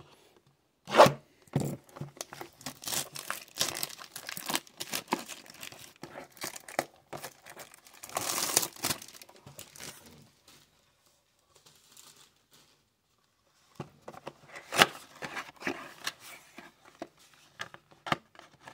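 Cardboard trading-card blaster box being torn open by hand, with the foil-wrapped packs inside crinkling as they are handled. A sharp rip comes about a second in, followed by several seconds of rustling and tearing, a short pause, then another sharp tear and crinkling near the end.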